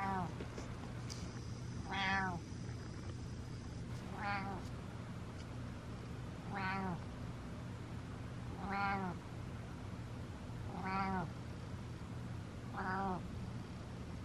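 Domestic cat meowing over and over: seven short meows, about one every two seconds.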